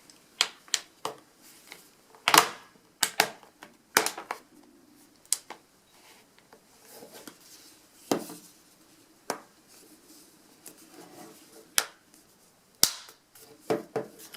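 Plastic back case of a Nexus 7 tablet being snapped back on: a string of sharp, irregular clicks as its clips catch one by one around the edge.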